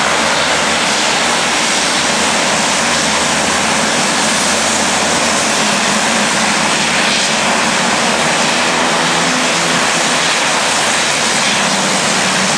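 Twin-engine turboprop plane's engines running loud and steady as it taxis onto the runway, a dense propeller-and-turbine noise with a low steady hum under it.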